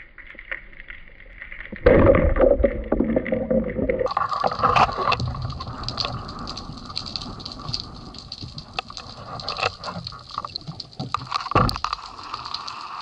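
Underwater sound from a spearfisher's camera: muffled rushing and gurgling of water with scattered knocks of gear. About two seconds in, a sudden loud rush of churning water lasts a couple of seconds, and near the end there is one sharp knock.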